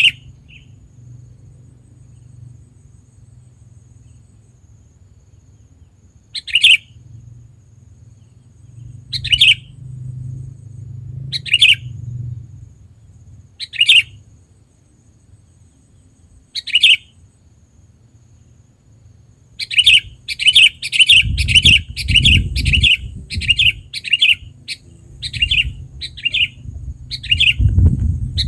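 Sooty-headed bulbul (kutilang) calling: short, clear notes every two to three seconds, then from about two-thirds through a quick run of about two calls a second. A low rumble joins under the calls in the last third.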